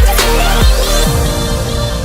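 Electronic dance music with deep bass hits that drop sharply in pitch and a rising sweep, thinning out and easing off just past halfway.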